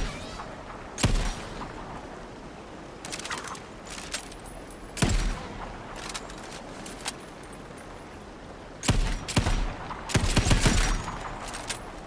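Revolver gunshot sound effect: single sharp shots a few seconds apart, each with a short ringing tail, then a quick string of shots near the end.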